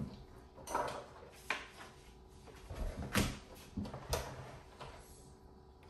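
Hard plastic parts of a Hot Wheels City playset knocking and clacking as they are handled and pressed into place: a handful of separate knocks, the loudest about three seconds in.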